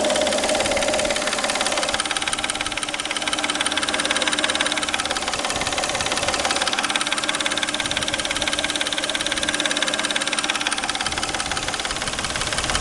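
Peugeot 607's 3.0 V6 engine idling with a rapid, even knock coming from around the timing belt drive.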